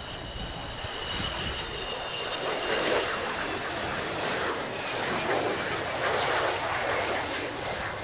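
Twin J79 turbojets of an F-4EJ Kai Phantom II on final approach and landing: a steady jet roar with a high whine that fades in the first few seconds, the roar growing louder as the jet passes close.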